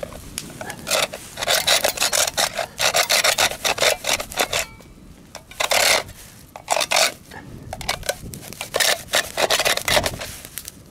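A blade sawing back and forth on a hard turtle shell: quick rasping strokes in several runs, broken by short pauses about halfway through and again later on.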